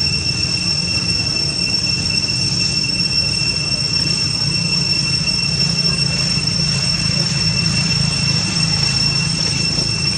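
A steady high-pitched whine, one unwavering tone with a fainter higher overtone, over a constant low rumble.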